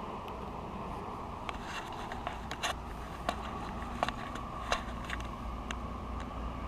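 SANY hydraulic excavator's diesel engine running steadily, with a scatter of short sharp clicks and scrapes in the middle of the stretch as the bucket works the red earth.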